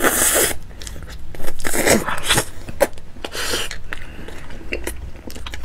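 Close-up mouth sounds of eating a giant xue mei niang, a soft, stretchy snow-skin mochi with cream filling: wet chewing and slurping in several short noisy bursts, with a few light clicks.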